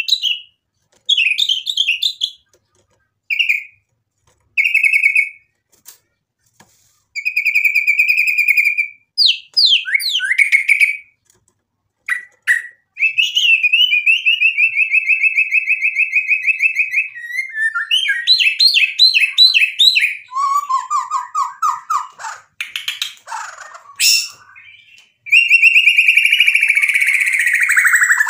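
White-rumped shama (murai batu) singing a varied song. It starts with short whistled phrases and trills separated by brief pauses, then sings almost without a break: a long fast trill, some lower repeated notes, and a loud falling phrase near the end.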